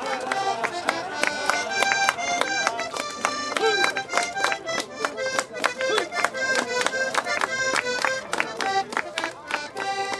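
Traditional Caucasian dance tune played on accordion: held, stacked notes over a quick beat of sharp clicks.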